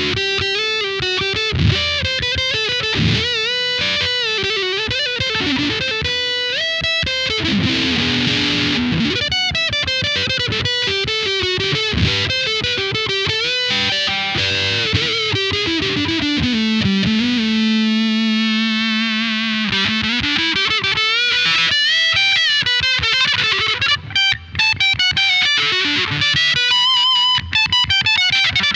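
Electric guitar played through a Caline M:Fuzz classic fuzz pedal, giving a fuzzy lead tone. It plays quick melodic runs and bends, holds a lower note with wide vibrato about two-thirds in, and ends with short, choppy notes.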